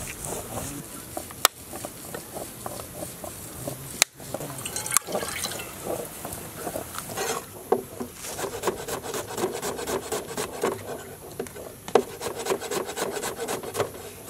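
Stone roller grinding chilli paste on a stone grinding slab (ammi kal), a rough rubbing scrape with a few sharp knocks. In the second half this gives way to fast, even knife chopping on a cutting board.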